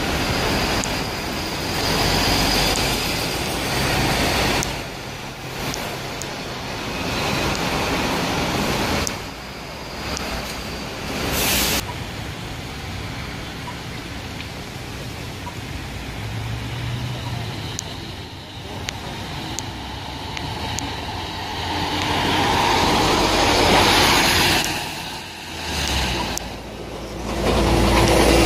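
Diesel city bus and road traffic: a MAN A22 single-deck bus with ZF EcoLife automatic gearbox runs and drives past over several short stretches, with a brief hiss partway through. The bus engine's rumble is loudest as it pulls away near the end.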